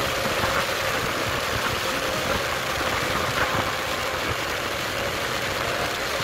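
Motorcycle under way on the open road: steady wind rush over the bike, with the engine running underneath.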